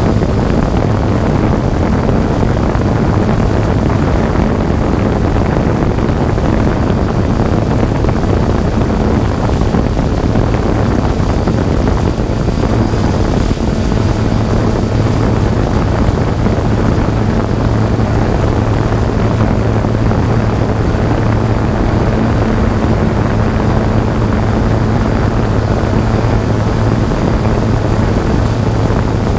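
Quadcopter drone's propellers and motors running steadily, picked up by its own onboard microphone: a constant low hum with a faint high whine over a rushing of air.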